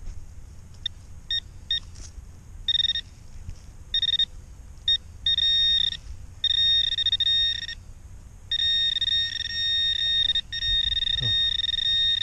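Handheld metal-detecting pinpointer sounding its high beep tone: a few short blips at first, then longer and longer tones that become nearly continuous as the probe is worked through the loose soil, the sign that the buried target is close.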